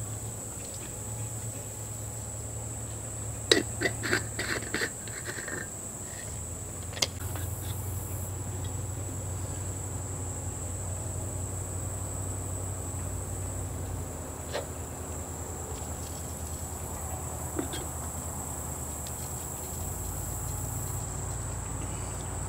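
A steady high-pitched insect chorus, with a quick cluster of sharp clicks and knocks a few seconds in and one more a little later as white PVC pipe and elbow fittings are handled and pushed together.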